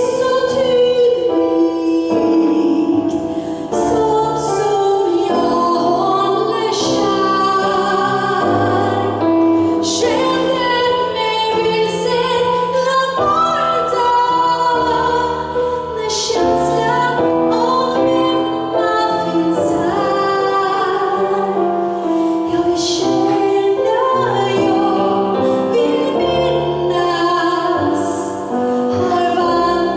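A woman sings a jazz song live, accompanied by piano and a drum kit, with cymbals struck often. The trumpet is not playing.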